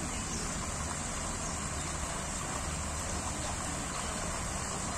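Steady splashing of fountain jets into a pool, over a constant low rumble.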